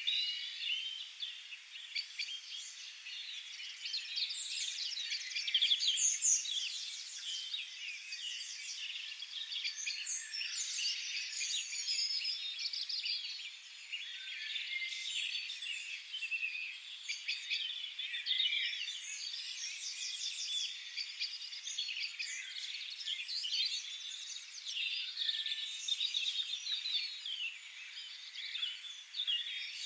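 Many songbirds singing at once in a dense, overlapping chorus of high chirps and rapid trills, without a break.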